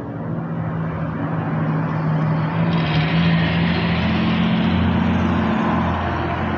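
A motor vehicle's engine running: a steady low hum with road-like noise that swells through the middle and eases toward the end.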